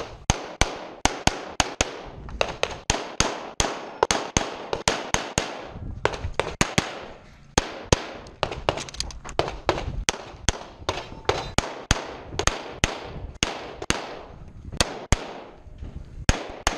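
Walther Q5 Match Steel Frame 9mm pistol firing a rapid string of shots, mostly in quick pairs a fraction of a second apart, several dozen in all with a few brief pauses.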